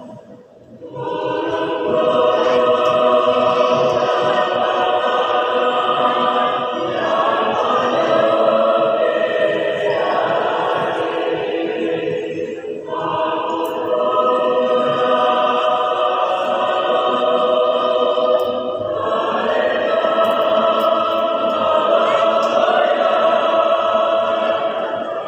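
A large choir singing in long, sustained phrases. The singing starts about a second in and pauses briefly about halfway through before going on.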